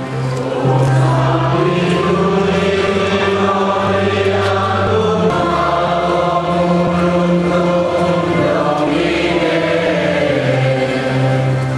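Choir and congregation singing a slow Catholic hymn together, holding each note for a second or more.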